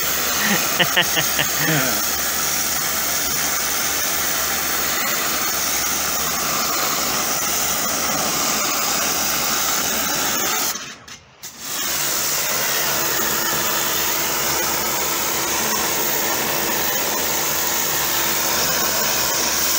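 Karcher high-pressure washer running, its water jet blasting dirt off the base of a concrete-block wall as a steady hiss and motor hum. The spray stops for about a second near the middle, then starts again.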